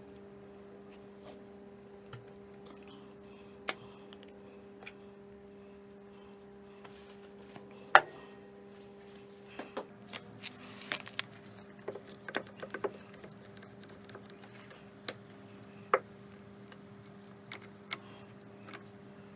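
Scattered clicks, taps and knocks of plywood pieces and screws being handled, with one sharp knock about eight seconds in and a flurry of small clatters a couple of seconds later. A faint steady hum runs underneath.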